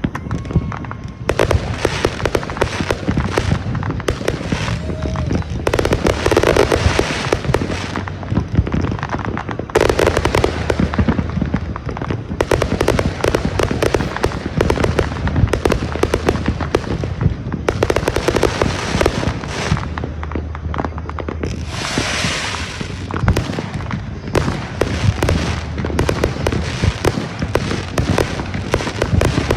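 Consumer fireworks show going off without a break: dense, rapid cracks and bangs from many shots fired in quick succession, with crackling throughout and a longer hissing burst about 22 seconds in.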